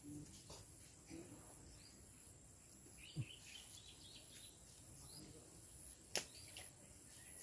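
Quiet outdoor ambience of faint bird chirps and a steady high insect whine that breaks off and resumes, with a soft thud about three seconds in and a single sharp click about six seconds in.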